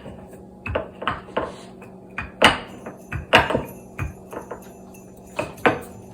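Rolling pin knocking and clattering on a hard work surface while candies are rolled flat: about ten irregular sharp knocks, some in quick pairs.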